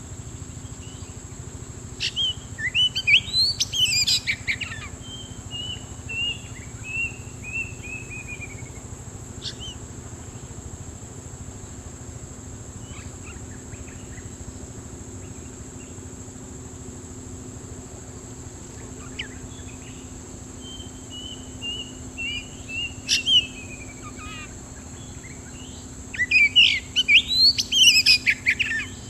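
Oriental magpie-robin song: a burst of rapid, varied notes about two seconds in and another near the end, with runs of short falling chirps between them. A steady high-pitched whine runs underneath.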